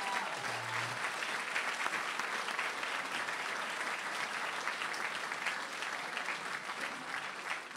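Audience applauding steadily, dense clapping at the close of a speech.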